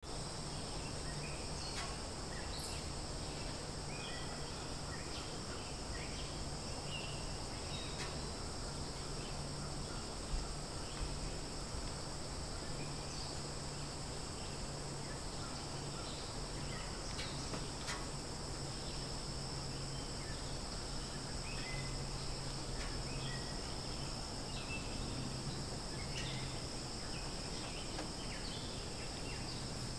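Steady high-pitched drone of forest insects, with scattered short chirps and a low steady hum underneath. A single brief knock sounds about ten seconds in.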